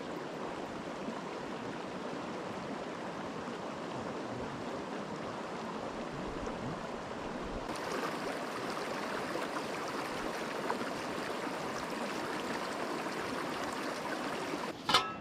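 Steady rush of a river's flowing water, growing brighter and a little louder about eight seconds in. A short, sharp pitched sound just before the end is the loudest moment.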